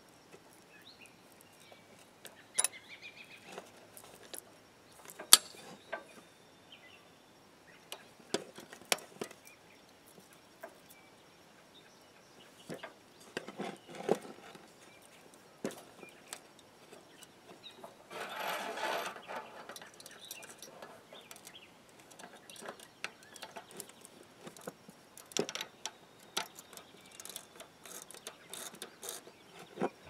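Scattered sharp metallic clicks and clinks as a threaded steel winch-cable end fitting is handled and its two halves fitted together in locking pliers. A brief scraping rustle comes about two-thirds of the way through.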